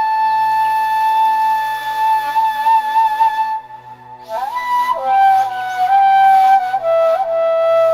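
Background music: a wind instrument plays long held notes that slide up into pitch, breaking off about halfway through, then going on with lower notes.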